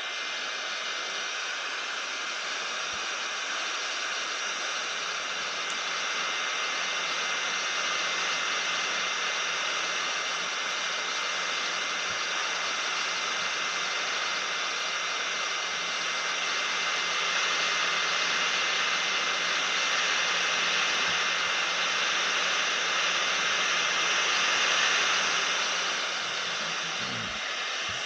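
Hot air rework station blowing a steady hiss with a faint high whine, heating the phone to soften the screen adhesive. It grows a little louder past the middle.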